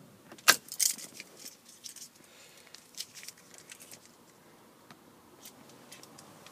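Ignition key in a 2013 Vauxhall Combo van being turned off and handled: a sharp click about half a second in, then a few lighter clicks and taps. The cabin is quiet, with the engine off.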